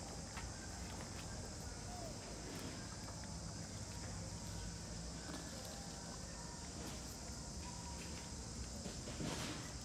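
Quiet outdoor ambience: a steady high hiss with a low rumble and a few faint soft taps, and a brief louder rustle a little after nine seconds.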